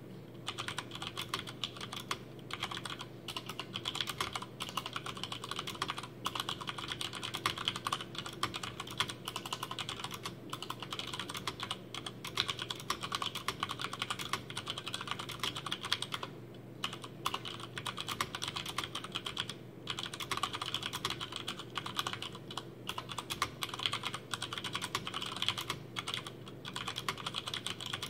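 Fast, continuous typing on a Hansung GO187 VIKI mechanical keyboard with Cherry MX Brown tactile switches, unlubricated and with no dampening foam. There are brief pauses about 16 and 19 seconds in, over a faint steady hum.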